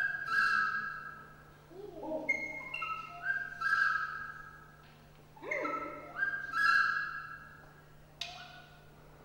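Recorder playing short phrases of high held and stepped notes, with lower sliding pitched sounds between phrases, then a single sharp click about eight seconds in.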